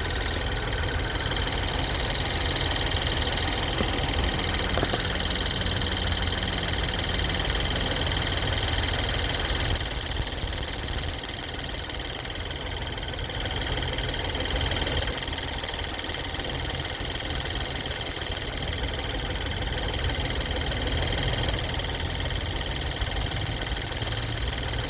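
2013 Ford Fusion's 1.6 EcoBoost turbocharged four-cylinder idling with a steady rapid ticking, which the owner traced to a bad EVAP purge valve.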